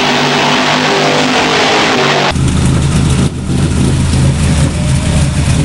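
A race car's engine running at speed on a track, cut off abruptly about two seconds in by a Ford 427 V8 running in an open engine bay, with a brief drop in level about a second after the cut.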